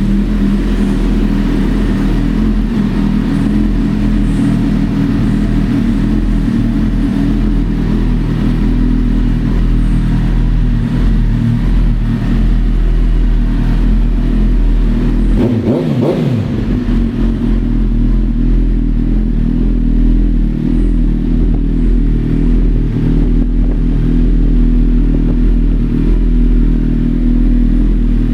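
2008 Suzuki GSX-R1000's inline-four engine idling steadily through an aftermarket Two Brothers exhaust, with one quick rev that rises and falls about halfway through.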